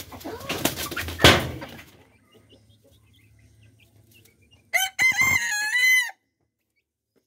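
A rooster crows once, a single wavering call of just over a second, about five seconds in. It is preceded by a short stretch of rustling noise with a sharp knock.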